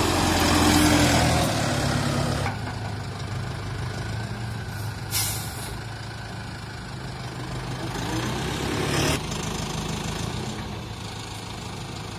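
Farmtrac 675DTN tractor's diesel engine running steadily while its front loader sets a wrapped round bale onto the trailer. A louder hiss rides over it for the first two seconds or so, and about eight seconds in a pitch rises for a second before cutting off.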